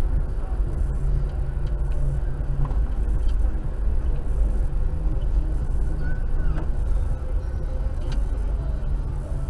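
Car engine running steadily at low revs while the vehicle creeps forward in a slow queue, a constant low rumble heard from inside the vehicle.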